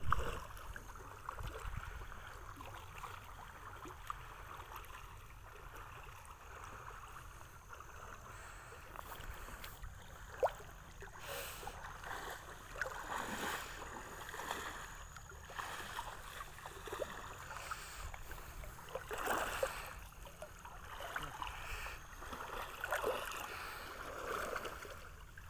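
River water swishing and sloshing as people wade through it pushing bamboo-framed push nets, with scattered short splashes.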